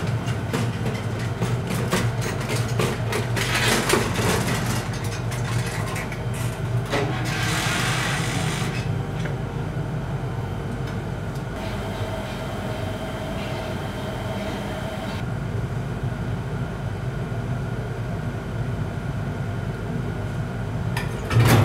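Steady low hum and rumble of crematorium cremator machinery, with clicks and rattles as a coffin is wheeled up on a trolley and a short burst of hiss about seven seconds in. Near the end the low rumble suddenly grows louder.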